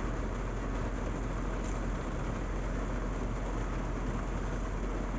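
Steady noise inside a car in rainy traffic: a low engine and road rumble under an even hiss of rain, with no distinct events.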